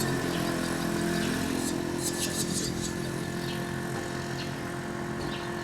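A motor vehicle engine, most like a motorcycle's, running at a steady pitch and slowly fading as it moves off. Faint short high clicks come a few times over it.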